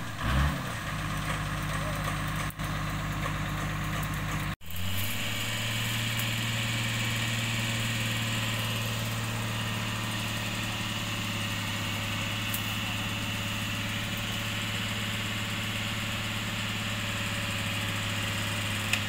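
Off-road 4x4's engine running steadily at idle. About four and a half seconds in the sound drops out briefly and comes back with a different steady idle.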